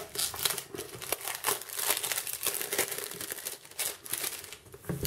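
Clear plastic tamper-proof shrink-wrap being picked open and pulled off a cardboard box by hand, crinkling in quick, irregular crackles.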